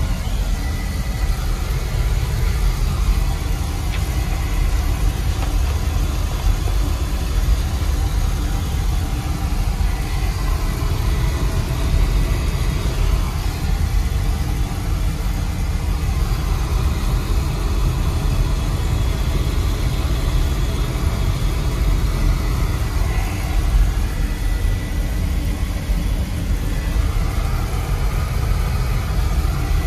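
Oil burner on a Weil-McLain boiler firing steadily, a continuous low rumble with a faint high whine; it is running after a new nozzle and filter and has started to quiet down.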